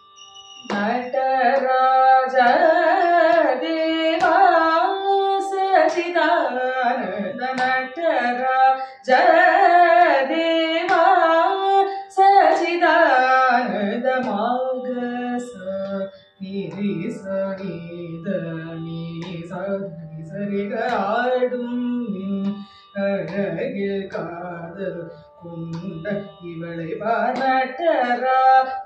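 A woman sings Carnatic vocal music in phrases of gliding, ornamented notes, with short breaks for breath. A steady drone from a small electronic shruti box runs beneath her voice.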